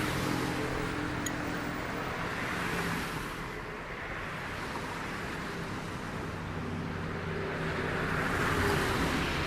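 Motor vehicle engine running with road noise: a steady hum over a wash of noise, dipping in the middle and building again near the end.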